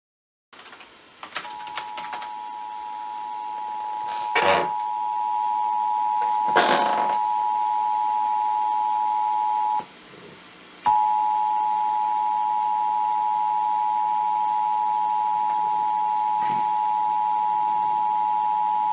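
Emergency Alert System attention signal heard from a radio broadcast: the steady two-tone alarm of 853 and 960 Hz sounded together, fading in over the first few seconds, cutting out for about a second midway, then holding steady. Two short bursts of noise sound over it in the first half.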